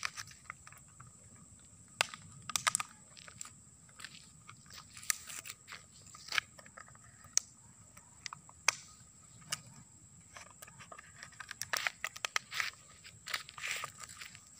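Dog biting and chewing a plastic bottle: irregular sharp crackles and crunches of the plastic, coming thicker near the end.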